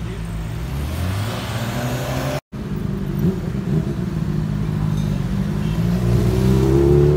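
Motorcycle and scooter engines passing close on a town street, getting louder toward the end as one revs up, its pitch rising.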